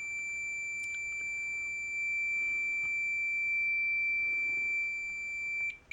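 Fluke 10 multimeter's continuity beeper sounding one steady high-pitched tone that cuts off just before the end. The meter reads about 3 ohms across its test leads, so it signals continuity.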